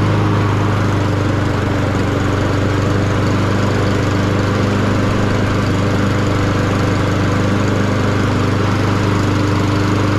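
Honda HRS216 push mower's GCV160 single-cylinder four-stroke engine running steadily at a constant speed.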